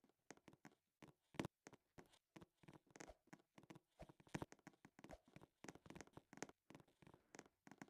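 Near silence broken by faint, irregular clicks and taps, several a second.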